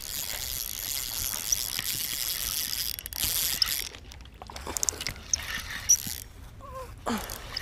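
Spinning fishing reel being cranked to retrieve line: a steady whirring hiss that stops abruptly about four seconds in. A few short high chirps and a brief falling sound follow near the end.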